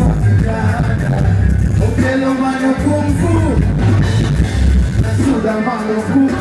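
Live band music with a singer's voice carried over a steady, pulsing bass beat.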